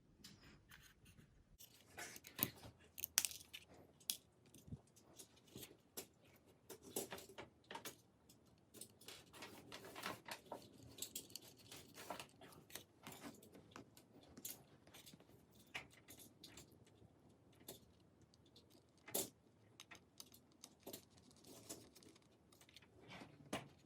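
Faint, scattered clicks and small metallic clinks of a small screwdriver and tiny drive-mounting screws being handled while the screws are fitted to a 2.5-inch SSD, with a slightly louder click about three seconds in and another near the end.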